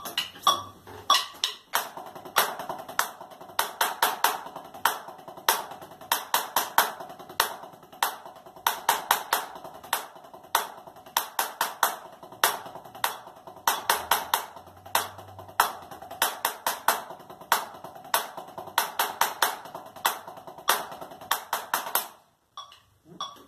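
Drumsticks playing rapid, even strokes on a practice pad: a double paradiddle rudiment with a sextuplet on the fourth beat, at 95 BPM, the accented strokes standing out louder in a steady repeating cycle. The playing stops abruptly near the end.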